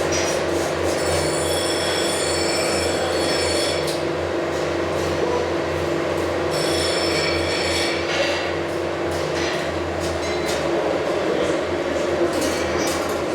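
Steady machine hum in a welding workshop, with a high whine that comes in twice for a few seconds and scattered clicks and taps.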